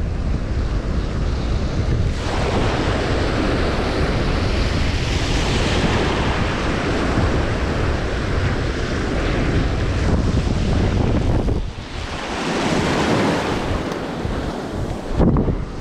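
Wind buffeting the microphone in a low rumble, over the hiss of surf washing in swells that rise and fall every few seconds.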